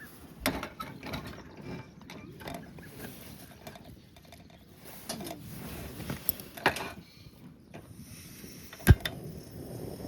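Scattered small clicks and light knocks, like objects being handled, with one sharp, loud knock about nine seconds in.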